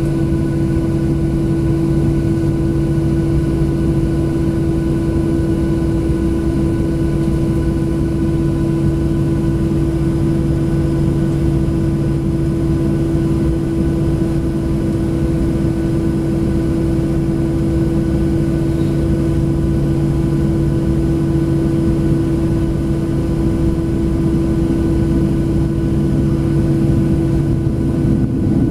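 Cabin drone of a Boeing 737-700 taxiing, its CFM56 engines at low thrust: a steady hum with several constant pitched tones over a rushing noise, growing a little louder near the end.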